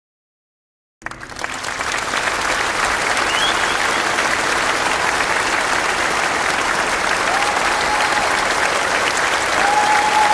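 Crowd applause that starts about a second in after a moment of dead silence and goes on steadily, with a couple of held whistle tones over it near the end.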